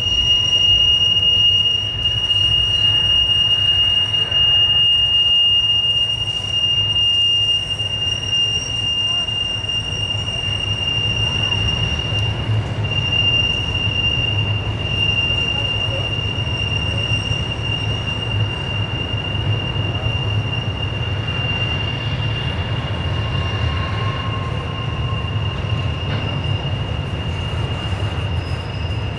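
Steel wheel flanges of slow-rolling double-stack intermodal cars squealing against the rail as the train rounds a tight curve: one steady high-pitched squeal held throughout, over the low rolling rumble of the passing cars.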